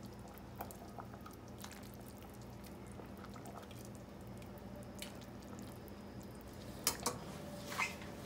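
Broth dripping and trickling from a ladle into a bowl of noodles, over a steady low hum. A few sharp clinks come near the end.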